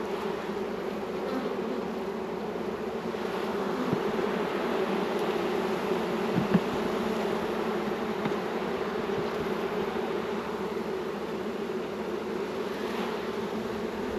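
Honey bees buzzing steadily around an open hive as the frames are inspected, a dense continuous hum, with a couple of brief knocks about four and six and a half seconds in.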